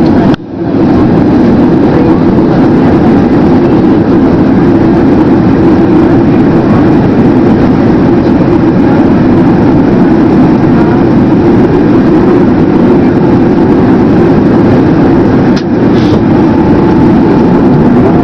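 Boeing 767-300 jet engines and rushing air, a loud, steady noise that drops out briefly twice, just after the start and about 15 seconds in.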